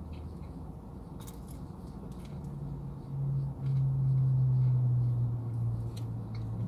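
Chewing a bite of crispy fried chicken tender, with scattered small crunches and clicks over a low background hum. From about two seconds in, a louder low steady hum, falling slightly in pitch, runs for about four seconds.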